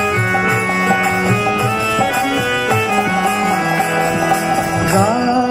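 Devotional kirtan music: an instrumental passage of held melody notes stepping from one pitch to the next, over light, steady percussion, with a sliding note near the end.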